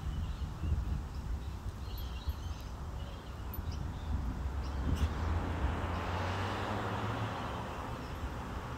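Outdoor ambience with a steady low rumble and a few faint high chirps, and the noise of road traffic swelling up about halfway through and staying to the end.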